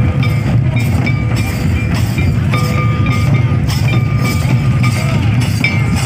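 Several hand-played two-headed barrel drums beating a steady dance rhythm, about three strokes a second, with short bright clinks recurring on the beat.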